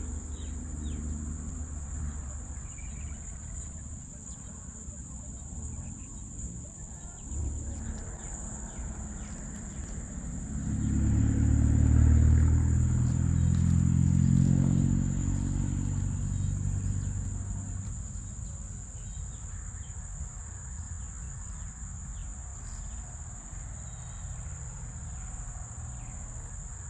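Insects chirring in one steady high-pitched tone throughout. About a third of the way in, a passing motor vehicle's engine swells to become the loudest sound, then fades away over several seconds.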